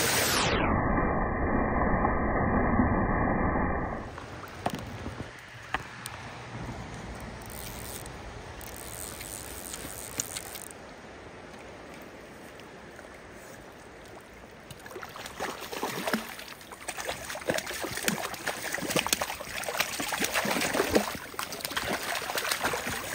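A waterfall's rush, dull and loud, for the first few seconds, then the quieter running water of a river. From about fifteen seconds in, repeated splashing as a hooked rainbow trout thrashes at the surface near the landing net.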